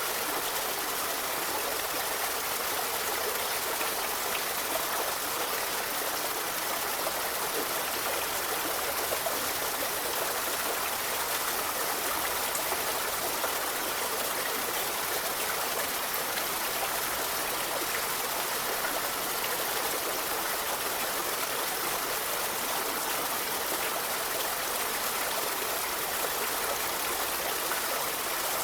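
A forest river flowing steadily over stones, a continuous rushing and trickling of water with no breaks.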